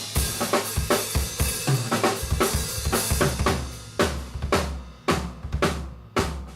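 A live drum kit playing a fast beat of kick, snare and cymbals. It breaks into a few hard, separated accent hits with short gaps between them near the end.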